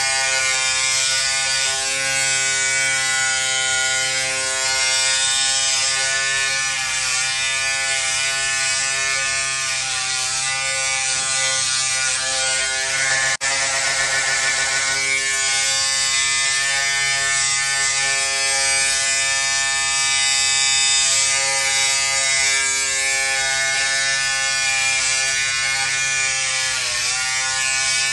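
Corded electric hair clipper running with a steady buzz as it is run over a short buzz cut to shave the head down. It cuts out for an instant about halfway, and its pitch sags briefly near the end as the blade meets more load.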